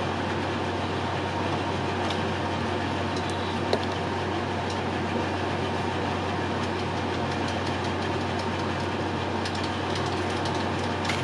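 Steady mechanical background hum with an even hiss, like a running air conditioner, with a few faint light clicks from small items being handled.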